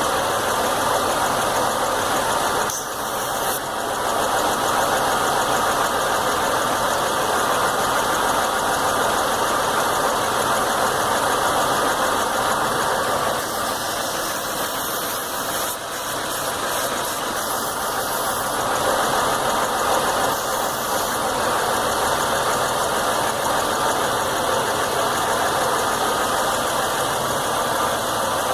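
Chevy Venture's 3.4-litre V6 idling steadily with a rough idle that throws no codes or warning lights.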